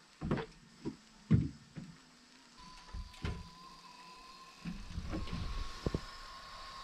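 A few sharp knocks as a shower valve on a braided supply hose is handled. About two and a half seconds in, a steady high whine starts and holds, and a rush of running water joins it about five seconds in.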